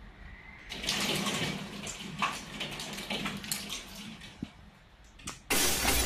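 Heavy rain and hail beating against window glass in a storm, a rushing noise full of scattered sharp hits that swells about a second in and eases off later. About five and a half seconds in it cuts abruptly to a loud glass-shattering sound effect.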